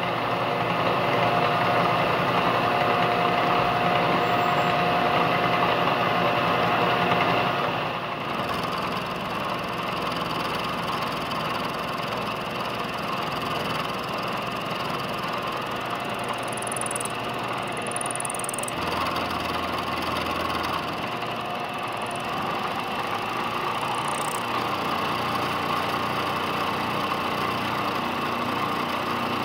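Milling machine running, its end mill cutting a flat into the shaft of a 1965 Ford Mustang steering box. There is a steady whine over roughly the first eight seconds, after which the machine runs on a little quieter and steadily.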